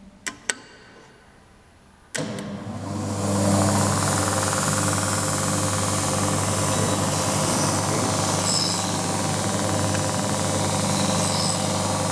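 Two clicks of control-panel buttons, then the motor of an Allrounder skate sharpening machine starts about two seconds in and runs up to a steady hum. Its grinding wheel then runs steadily with a loud hiss as the skate blade is ground.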